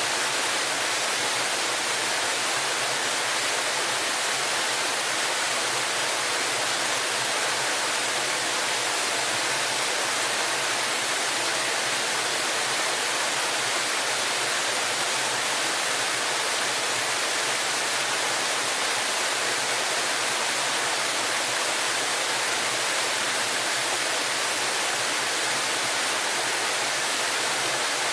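Waterfall: a steady, even rush of falling river water.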